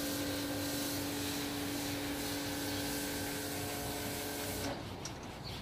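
Vacuum cleaner motor running with a steady whine and hiss, cutting off abruptly near the end and leaving only faint background noise with a few light clicks.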